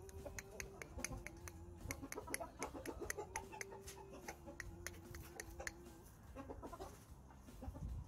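Aseel chickens clucking: a quick run of short, sharp clucks that dies away about five and a half seconds in.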